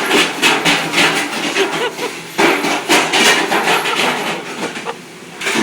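Rapid, loud clatter of dishes and dish racks being handled at speed in a restaurant dish pit: many sharp knocks and clanks in quick succession, with a short lull near the end.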